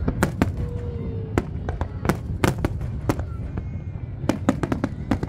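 Aerial fireworks shells bursting in a display: a dozen or so sharp bangs at uneven intervals over a continuous low rumble.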